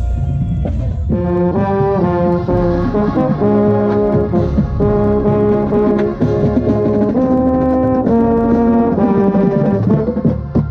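Drum corps brass section playing a passage, led by a marching baritone whose bell sits right at the microphone. Held notes change pitch every half second or so, with a brief break just before the end.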